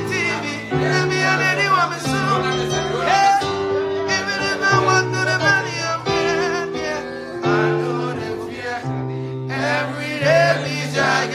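Electronic keyboard playing held chords that change about every second and a half, with a man singing a wavering melody over them.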